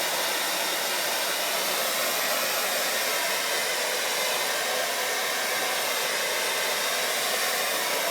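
Hair dryer blowing steadily, an even rushing hiss of air with a faint motor whine, held at one constant level.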